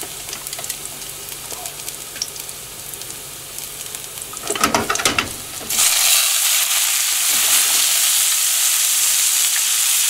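Garlic crackling lightly in hot oil in a frying pan, then a few knocks and clatters. About six seconds in, a marinated New York strip steak goes into the pan and a much louder, steady sizzle takes over.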